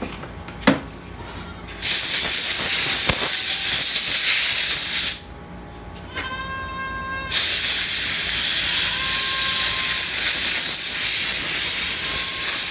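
Loud hissing spray of pressurized air or aerosol in two long bursts, the first about three seconds and the second about five, with a sharp click about a second in.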